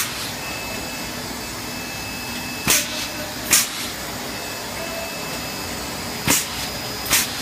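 Air bubble film (bubble wrap) making machine running with a steady noise, broken by short sharp hisses of air that come in pairs about a second apart, about every three to four seconds.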